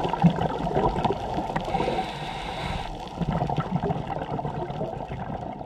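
Underwater sound of water gurgling and bubbling, slowly fading.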